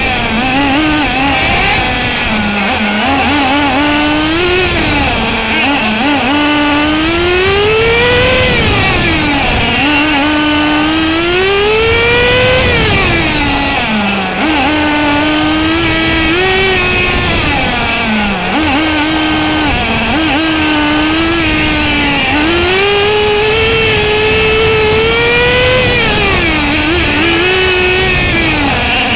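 Small nitro engine of a radio-controlled racing car, heard from on board as it laps a track. The pitch climbs high on each straight, then drops back when the throttle lifts for a corner, several times over, with a constant rush of noise beneath.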